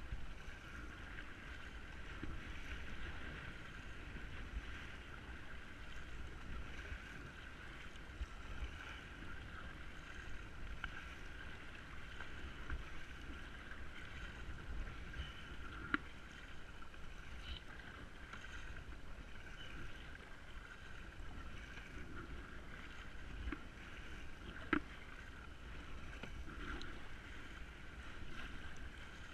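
Kayak being paddled, with water sloshing and paddle strokes over a steady hiss and a low rumble. Two sharp knocks come through, one about halfway and one near the end.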